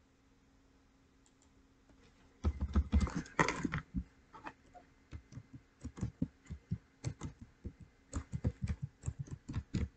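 Typing on a computer keyboard: a denser clatter of keystrokes about two and a half seconds in, then irregular single key clicks a few a second.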